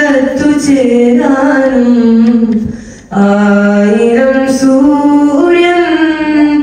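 A teenage boy singing a Malayalam madh (devotional praise) song solo with no instruments, in long held notes that glide up and down in pitch, with a short breath break about three seconds in.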